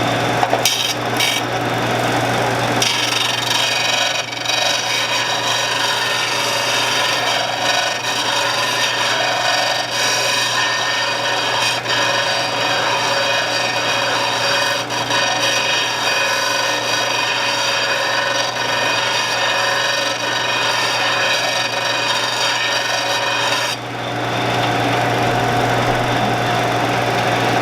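Shopsmith running as a grinder, with a steel roughing gouge held in a sharpening guide being ground against it: a steady motor hum under a harsh, continuous grinding rasp that starts about three seconds in and eases off a few seconds before the end.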